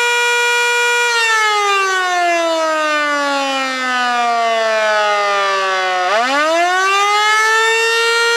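Federal Signal Model 2 electromechanical fire siren sounding the attack signal: its tone holds at full pitch, then slides down for about five seconds and winds quickly back up to full pitch, where it holds again.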